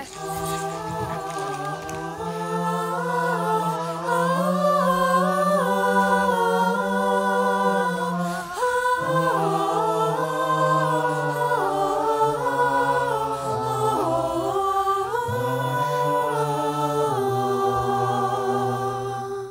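Several voices singing a wordless melody together in close harmony, a cappella, holding chords that change in steps. It cuts off abruptly at the end.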